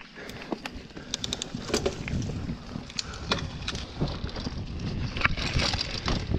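Hardtail mountain bike rolling down a rough dirt singletrack: tyre noise and wind rumble on the mic, with scattered sharp clicks and rattles from the bike jolting over the trail, growing louder as it picks up speed.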